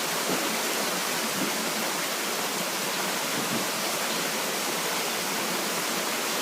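Steady rush of a small waterfall, water falling and splashing without a break.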